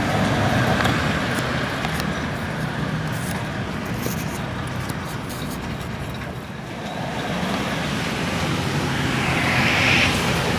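Steady rumble of road traffic, with a low hum underneath and a brief rise in hiss near the end.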